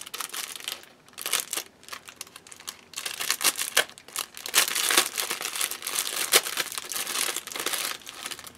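Clear plastic bag crinkling and rustling as hands handle and open it: irregular crackles that grow busier in the second half.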